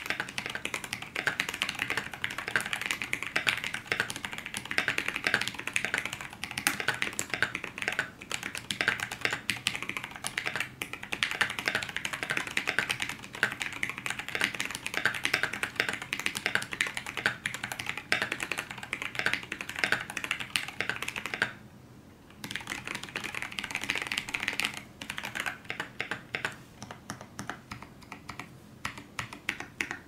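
Typing on a KBD75v2 mechanical keyboard with Zealios tactile switches, an aluminium plate and Durock stabilisers: a dense, fast run of key clacks, with a brief pause about two-thirds through, then slower, separate keystrokes near the end.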